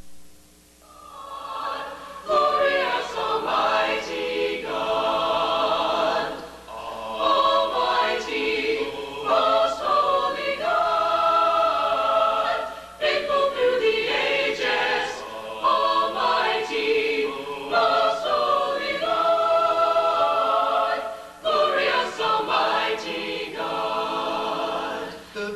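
Choir singing unaccompanied: held chords in long phrases, swelling in from quiet at the start, with short breaths between phrases.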